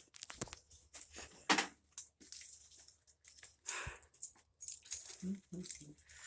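Hand tools and small metal parts clinking and being handled, with a sharp knock about one and a half seconds in.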